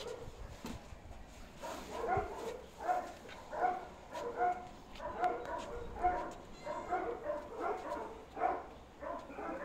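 A dog barking over and over in a steady rhythm of about two to three barks a second, starting about two seconds in.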